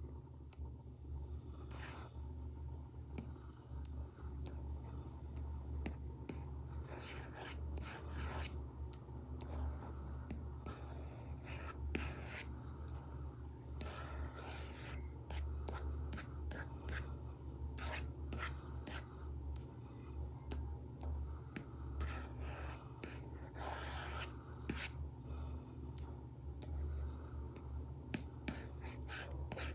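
Stylus tip scratching and tapping on an iPad screen fitted with a paper-like matte film, in short strokes at irregular intervals, over a steady low hum.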